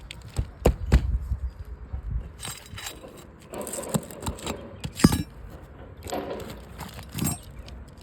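Roof shingles being handled and pried at: rough scraping and crinkling of the shingle material, broken by several sharp clicks and taps, the loudest about one second and five seconds in.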